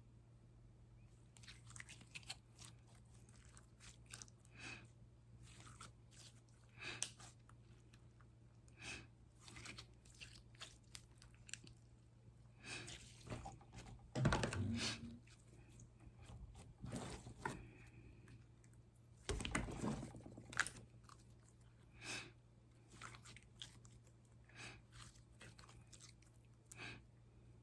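Hands kneading and pressing slime, giving irregular sticky crackles and pops, with two longer, louder squelches about halfway and two-thirds of the way through.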